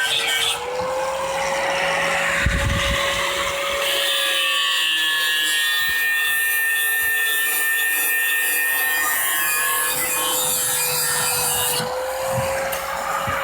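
Angle grinder running with a steady whine, its disc grinding an axe blade with a rasping hiss that shifts in strength as it is worked along the edge.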